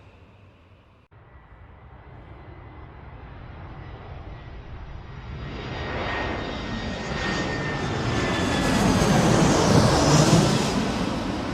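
Airplane approaching and passing overhead: its engine noise builds from faint to a loud peak near the end, with a high whine that slides slightly down in pitch, then starts to fade.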